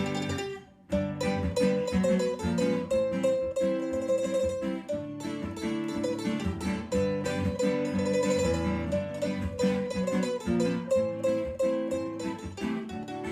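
Background music played on plucked string instruments, with a steady melody.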